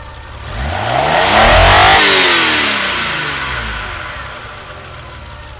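Nissan RB25DE straight-six on individual throttle bodies revved once: its pitch climbs for about a second and a half, then falls back slowly to idle.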